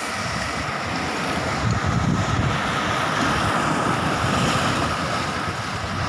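Sea surf and wind, with gusts buffeting the microphone in a low, uneven rumble.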